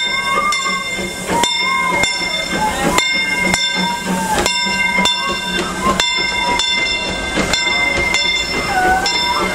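Steam train's passenger cars rolling slowly past, their wheels clicking over a rail joint in regular pairs about every second and a half, one pair for each truck. A steady high-pitched squeal runs underneath, with faint crowd voices.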